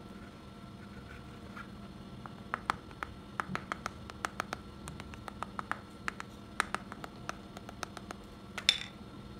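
Rapid light taps of a mallet on the shaft end and bearing housing of a brushless DC fan motor, about three to four a second, starting about two seconds in. They seat the bearing in its housing. Near the end comes one louder tap that rings briefly.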